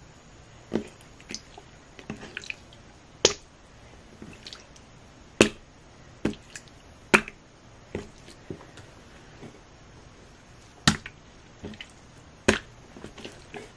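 Slime being squished, stretched and peeled off the fingers, giving irregular sharp wet pops and clicks about every second or so, a few of them much louder than the rest.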